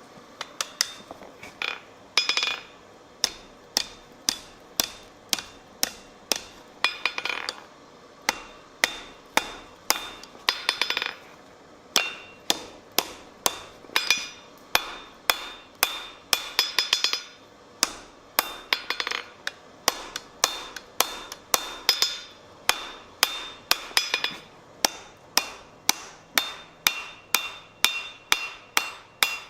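Blacksmith's hammer striking metal on an anvil, hand forging at a steady rhythm of about two blows a second with a metallic ring, and now and then a quick flurry of lighter taps.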